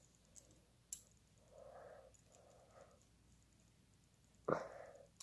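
Faint metallic clicks from hinged police handcuffs being double-locked, with soft breaths between. A sharper, louder sudden sound comes about four and a half seconds in.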